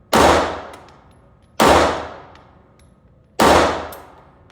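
Three pistol shots, about one and a half to two seconds apart, each sharp crack ringing out for about a second.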